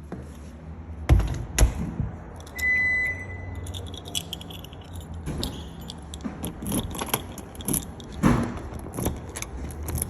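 Two sharp knocks, then a short high beep about two and a half seconds in, followed by several seconds of light metallic jingling and clicking from small metal objects being handled.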